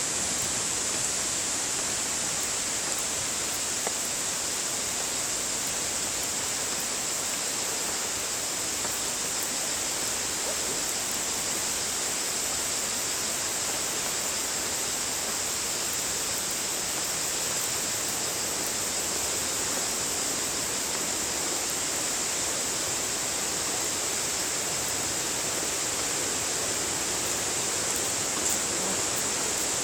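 Steady, even rushing of falling water from a waterfall, unchanging throughout, with a bright hiss high in the range.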